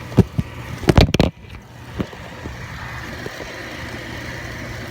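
Oil furnace burner motor and fuel pump running with a steady hum while oil and air bubbles spit from the open bleed screw. The air in the line shows that the line is still being bled. A cluster of loud knocks comes about a second in.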